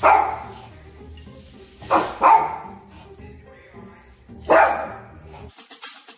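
Yorkshire terrier barking at its own reflection in a mirror: four sharp single barks, two of them close together, spread over about five seconds. Near the end, music with a quick drum beat comes in.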